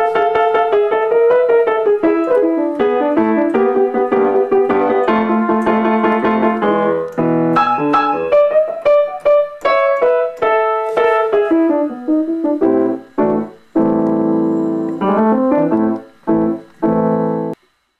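Acoustic grand piano played solo: a flowing passage of chords and melody, then a run of separately struck chords with short gaps between them, cut off abruptly near the end.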